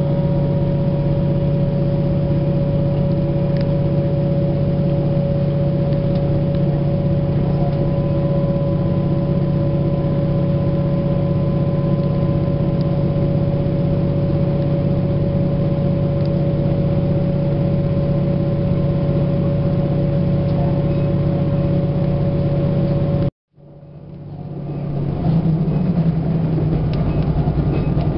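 Steady drone of a vehicle heard from inside while travelling at an even pace, a constant low hum with a higher whine over it. About five seconds before the end it cuts out abruptly, then fades back up over a couple of seconds with a slightly different hum.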